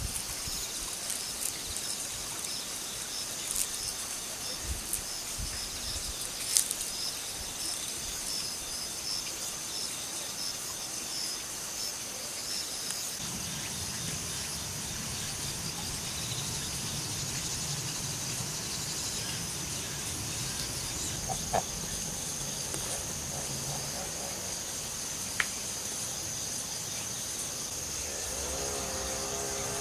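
Steady high-pitched insect chirring, with a few sharp clicks in the first half. A low hum joins from about halfway, and a pitched drone rises in pitch near the end.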